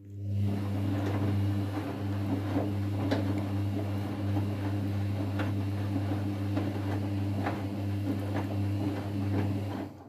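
Whirlpool FL 5065 front-loading washing machine running its rinse cycle: a steady low mains hum with water sloshing and scattered light clicks. It starts suddenly and stops suddenly.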